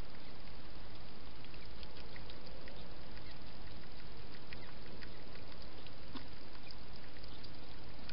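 European hedgehog feeding at a dish: small, irregular wet clicks and smacks over the steady hiss of the camera's microphone.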